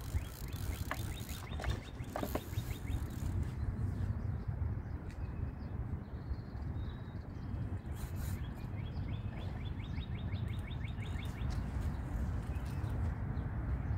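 Wind rumbling on the microphone, with two runs of rapid, even clicking, one about a second in and one around nine seconds in, from a fishing reel as the hooked carp is played and reeled in.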